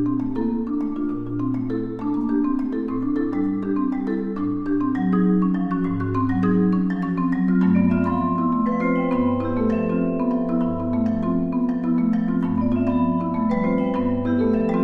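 Two marimbas and a vibraphone playing together in a live performance: quick, busy mallet notes over a repeating pattern of low bass notes, with longer ringing notes joining about halfway through.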